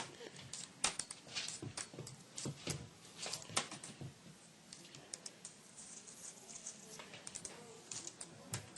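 Irregular light clicks and taps, several a second, with a few louder ones.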